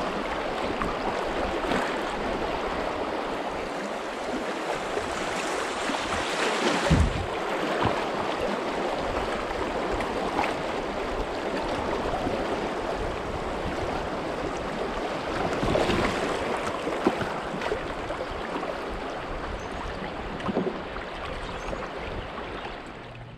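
Fast river water rushing and splashing through a shallow riffle close to a boat-mounted camera, steady throughout, with a couple of brief low bumps.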